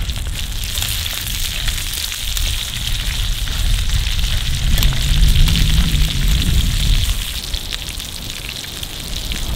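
Food sizzling and crackling in a pan, a steady crackly hiss, with a low wind rumble on the microphone.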